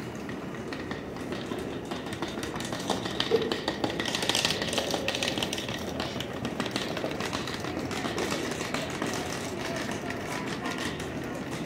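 Busy subway station passageway: crowd noise with voices and footsteps, and rolling suitcase wheels clicking over the floor tiles, under the rumble of a subway train running. The noise swells about four to five seconds in.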